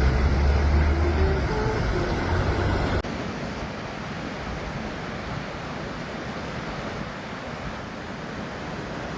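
A low rumble that breaks off abruptly about three seconds in, followed by a steady rush of wind and water.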